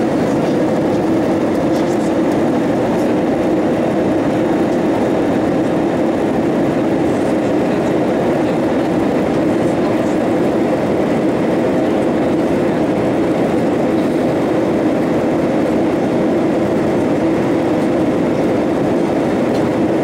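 Steady, unbroken cabin noise inside an Airbus A320-232: a deep rumble and rush from the engines and air, holding the same level throughout.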